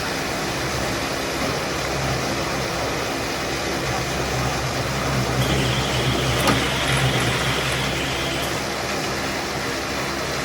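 A machine's engine running steadily with mechanical noise. The low drone strengthens for a few seconds in the middle, with an added hiss and a single sharp click.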